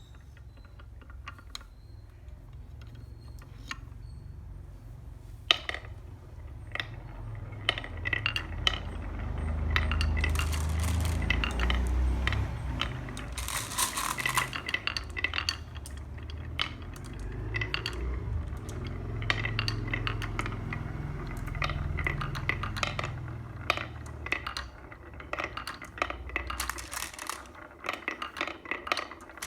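Glass marbles rolling down a handmade wooden track: a low rolling rumble that swells and fades twice, over many sharp clicks and clacks of marbles striking the wood and each other.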